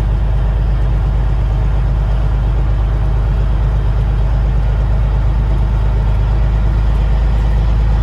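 Truck driving down the highway: a steady, loud low engine and road drone that holds even throughout.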